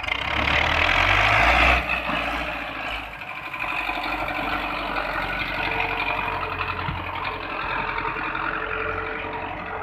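Farm tractor's diesel engine running as it pulls a loaded trolley and thresher through soft dirt. It is loudest for the first two seconds, dips briefly, then settles to a steady drone.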